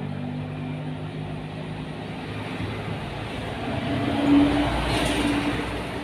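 A motor vehicle's engine runs steadily, grows louder to a peak about four to five seconds in as it passes close, then fades.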